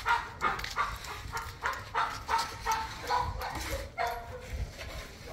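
A dog barking rapidly in a steady run of short, high barks, about three a second, growing fainter and stopping near the end.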